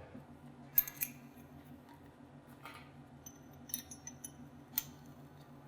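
Faint, scattered clicks and light metallic taps of a power drill being handled, over a low steady electrical hum.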